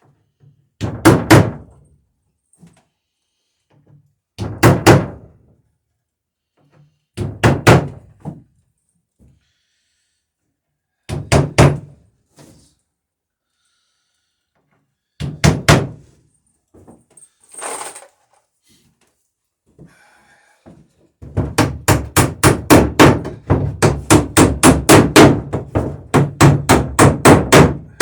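Hammer blows on the wooden planking of a boat being clench-riveted: short groups of two or three sharp strikes every few seconds, then, about three quarters of the way in, fast steady hammering at about three blows a second.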